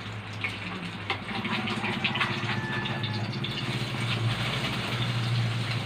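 A steady low engine hum with rattling, growing louder about a second in.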